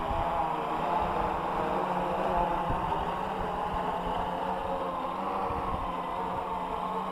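AEE AP10 Pro quadcopter's electric motors and propellers buzzing steadily as it hovers and flies low, the pitch wavering slightly as the motors adjust.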